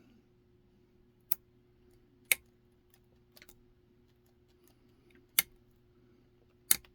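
Sharp, separate clicks from the pin tumblers and the hook as a kik cylinder is single-pin picked with a short hook under pry-bar tension. There are about five clicks, irregularly spaced, with the loudest ones near the middle and near the end; one of them is a pin setting at the shear line.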